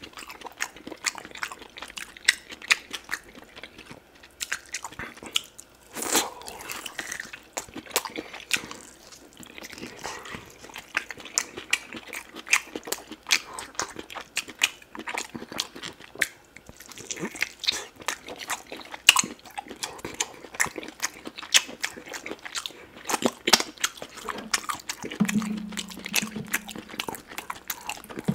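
Close-miked eating sounds of a person biting and chewing oxtail meat: many quick wet mouth clicks and smacks. A short low hum comes near the end.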